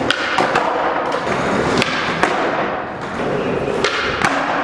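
Skateboard wheels rolling on a concrete floor, with sharp pops and board slaps as flatground tricks are popped and landed; a pop and a landing come close together near the end.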